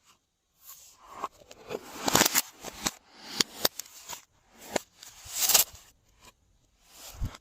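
Glossy slime being squished and worked by hand, in irregular squishes broken by sharp clicking pops.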